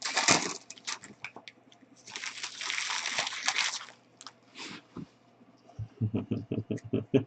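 Trading card pack being opened and cards handled: a wrapper crinkling and rustling for a couple of seconds, with scattered clicks. Near the end comes a quick run of soft ticks as cards are slid and flipped.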